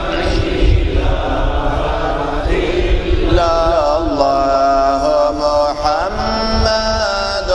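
A man chanting an Arabic qaseedah in a slow, ornamented melody, holding long notes whose pitch bends and wavers.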